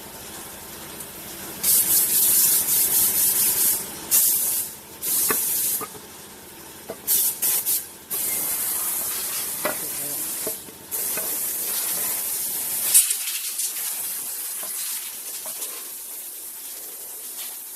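Loud hissing in repeated bursts of a second or two each, starting and stopping abruptly, over a fainter steady hiss.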